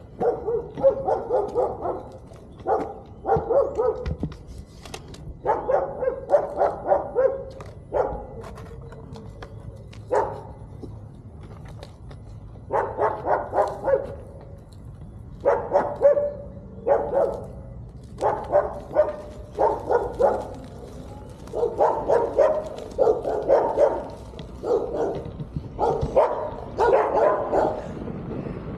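A dog barking in repeated runs of quick barks, with short pauses between runs.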